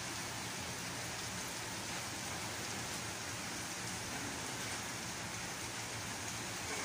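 Gentle rain falling steadily on a paved street and wet pavement, an even hiss.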